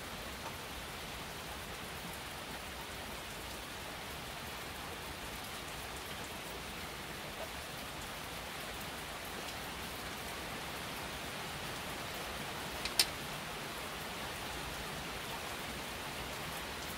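Steady rain falling, an even hiss with no pauses. A single sharp click cuts through it about thirteen seconds in.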